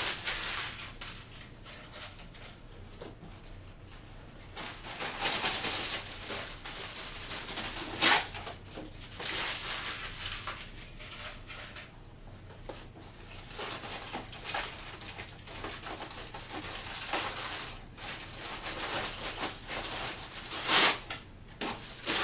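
Aluminium foil being crumpled by hand into small balls: an on-and-off crackly, crinkling rustle, with two short, much louder sharp crackles.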